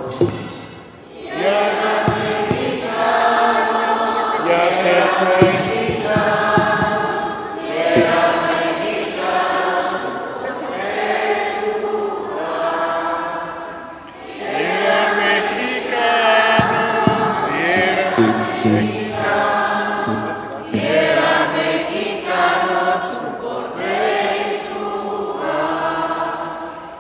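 A congregation singing a Spanish hymn together, with a man's voice leading on a microphone. It goes in long phrases with a short break between them every six or seven seconds.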